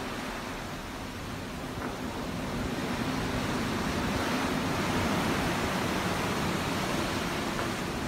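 Ocean waves: a steady rushing wash of open-water surf that grows louder over the first few seconds, then holds.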